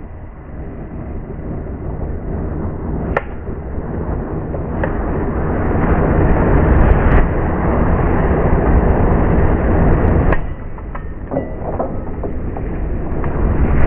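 A mass of matches flaring up and burning: a rushing flame sound with scattered crackles and pops, growing louder, dropping off sharply about ten seconds in, then swelling again.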